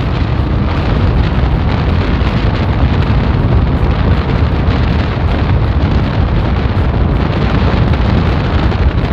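Royal Enfield Bullet's single-cylinder engine running hard at speed, heard from the rider's seat under heavy, steady wind buffeting on the microphone.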